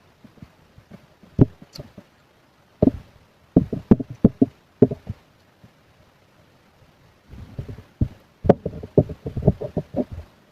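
Close-miked eating sounds: quick chewing and mouth noises in bursts of several a second, one short cluster about three seconds in and another about eight seconds in.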